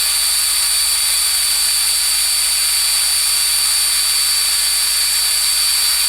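Handheld-style wood router mounted in a homebuilt Arduino-controlled CNC machine, running at speed with a steady high whine as its 1/16-inch bit carves a sign.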